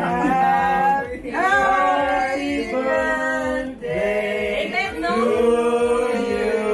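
A group of family members singing a birthday song together, women's voices loudest and children joining in. The words are drawn out in long held notes, with short breaths between the lines.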